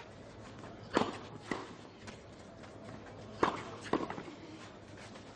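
Tennis ball struck by rackets during a doubles rally on a clay court: two sharp hits about two and a half seconds apart, each followed about half a second later by a softer knock.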